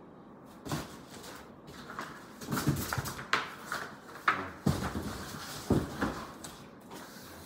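Large cardboard box being handled: a run of irregular knocks, thumps and scrapes as it is lifted and shifted about, busiest in the middle of the stretch.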